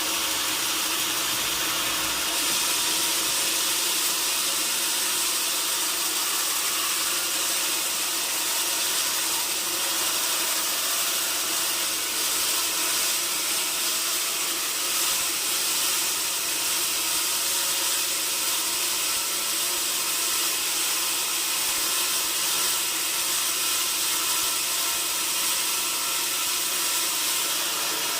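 Sawmill machinery running steadily: an even, hissing mechanical noise with a faint hum under it, unchanged throughout.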